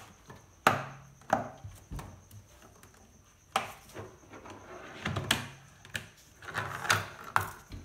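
Wire spring clamp being worked off the rubber door seal of a front-loading washing machine with a hook pick: irregular sharp clicks and knocks, about a dozen, with brief rubbing and scraping between them.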